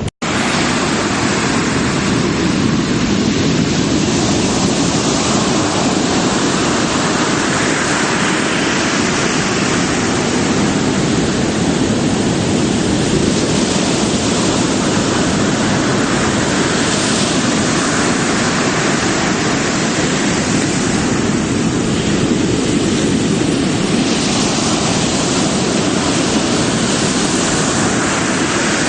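Pacific Ocean surf breaking continuously on the shore, a steady wash of waves that swells a little every several seconds.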